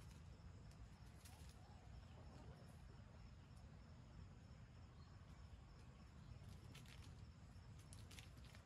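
Near silence: faint outdoor ambience with a low rumble and a few faint high clicks.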